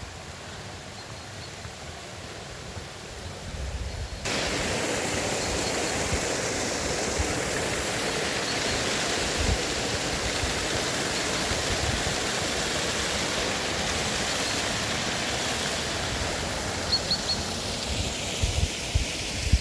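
Small waterfall: water rushing steadily, stepping up sharply in loudness about four seconds in. A few low bumps near the end.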